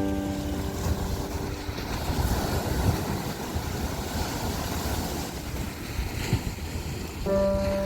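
Ocean waves with wind buffeting the microphone, a steady rush with a heavy low rumble. Background music fades out about a second in and comes back near the end.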